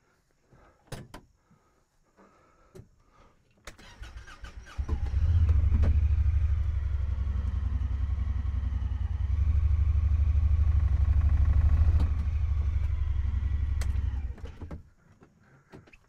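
Honda Pioneer side-by-side UTV engine starting, then running with a steady low drone for about ten seconds while the vehicle is backed up a short way. It shuts off near the end.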